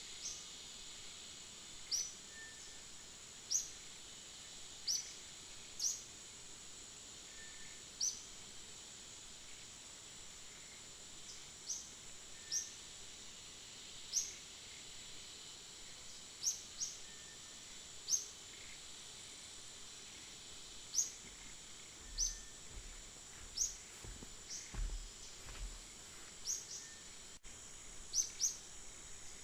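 Short, rising bird chirps, one every second or two, over a steady high-pitched insect drone.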